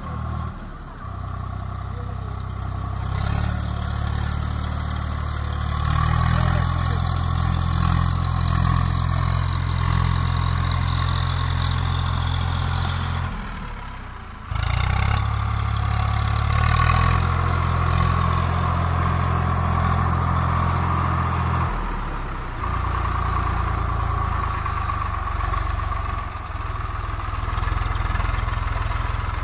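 Diesel tractor engine running loud and steady, with a deep, even drone. The sound breaks off briefly about 14 seconds in and shifts again about 22 seconds in.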